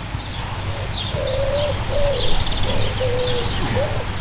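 A pigeon cooing in a run of low calls starting about a second in, with small birds chirping high above it.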